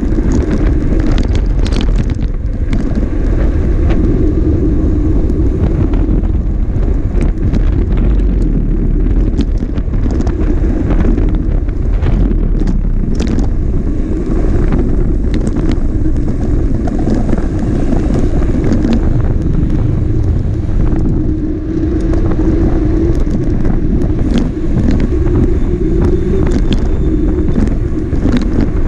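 Motor vehicle running steadily on the road, with wind buffeting the microphone.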